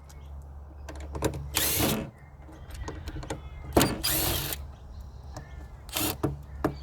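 A power drill-driver run in short bursts, about four or five times, while screws are taken out of an electric chainsaw's housing, over a steady low hum.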